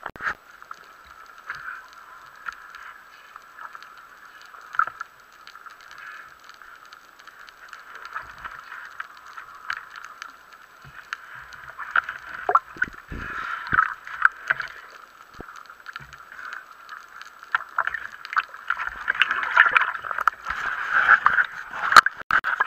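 Underwater sound heard through a waterproof action camera's housing: a steady muffled hiss with scattered clicks and knocks from handling the speargun and the speared grouper. Near the end the crackling grows louder as bubbles stream past the camera close to the surface.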